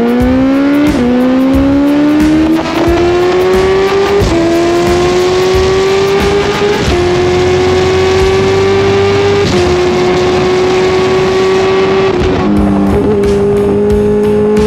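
Sport motorcycle engine under hard acceleration, its pitch climbing in each gear and dropping sharply at each of about four upshifts, then falling and holding steadier near the end, with wind rushing over the microphone.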